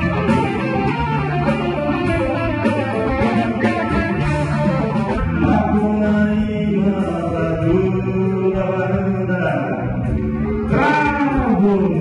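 Live band music with guitar and drums, and a man singing into a microphone over it.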